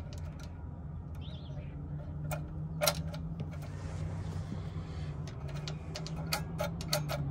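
Light metallic clicks as the governor spring is unhooked and moved to another hole on the throttle linkage of a Briggs & Stratton 6B-SF engine, which is not running. There are two clicks around the middle and a quick run of them near the end, over a low steady background hum, with a faint bird chirp about a second in.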